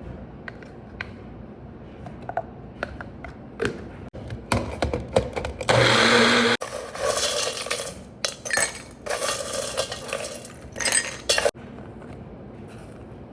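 Kitchen drink-making sounds: light clinks and knocks of glassware and utensils, then several loud rattling, whirring stretches around the middle, one with a brief motor hum.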